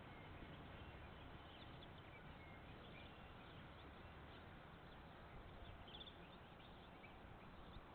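Near silence: faint hiss from a security camera's microphone, with faint scattered bird chirps through the middle.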